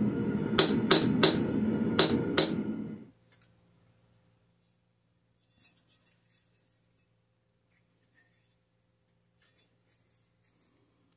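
A light hand hammer strikes a red-hot steel knife blade on an anvil about five times in quick sharp blows, refining and straightening the blade. The strikes sit over a steady background that stops abruptly about three seconds in, leaving near silence with a few faint clicks.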